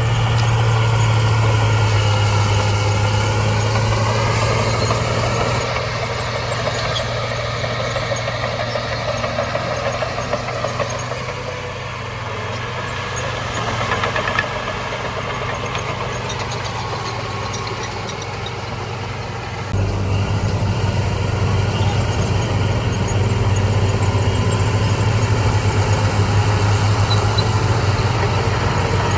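Heavy diesel engine of earthmoving machinery running steadily with a deep, even note, and a brief rise and fall in pitch in the first few seconds. The sound changes abruptly about six seconds in and again about twenty seconds in.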